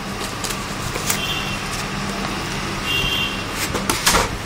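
Laptop in white foam end caps being pulled out of its cardboard box: foam and cardboard scraping and knocking, with two short high squeaks and the loudest knocks near the end, over a steady background hum.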